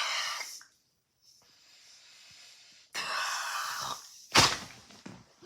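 A person blowing air hard in two long, breathy hissing bursts, then a short, loud, sudden blast about four and a half seconds in.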